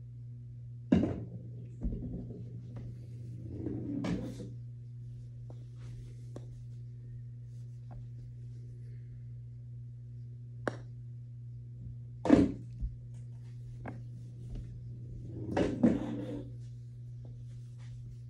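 Golf putter striking a ball on an indoor putting mat, with the sharpest click about twelve seconds in, and a short run of knocks a few seconds later as the ball reaches the cup end of the putting trainer. There are a few softer knocks earlier, over a steady low hum.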